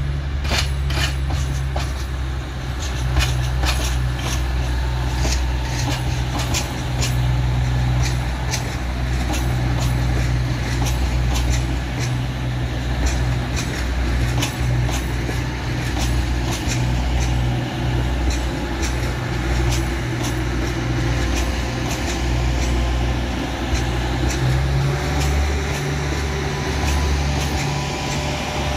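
Class 222 Meridian diesel multiple unit running past slowly, its underfloor diesel engines giving a steady low drone. Sharp clicks and knocks come from the wheels on the track, frequent in the first ten seconds and sparser after.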